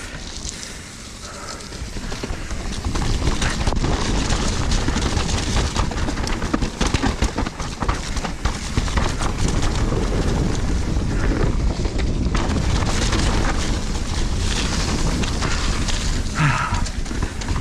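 Mountain bike descending a muddy trail at speed: wind rushing over the camera microphone, with tyres on dirt and the bike's chain and frame rattling over bumps. It gets louder about three seconds in.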